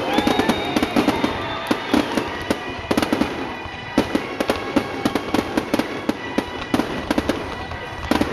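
Aerial fireworks shells bursting, with dense, rapid crackling and popping; the crackle eases off about three seconds in and picks up again about a second later.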